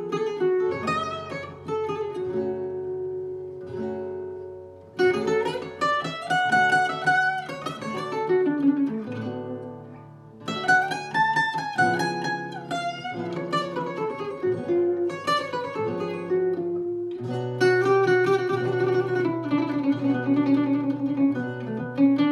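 Acoustic guitar music played back through a home-built KT120 valve monoblock amplifier and Sonus Faber Toytower floor-standing speakers: plucked melodic phrases that die away briefly twice before picking up again.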